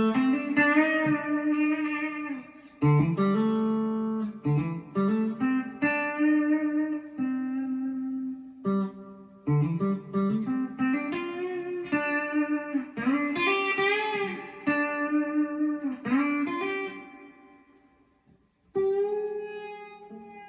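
Squier Classic Vibe '50s Telecaster electric guitar played clean through an amp with a little reverb: single-note melodic phrases with several string bends. There is a short lull near the end, then one last note rings out and fades.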